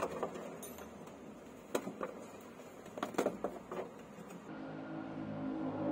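A few scattered light clicks and knocks over a low hiss. About four and a half seconds in they give way to background music holding a steady low chord.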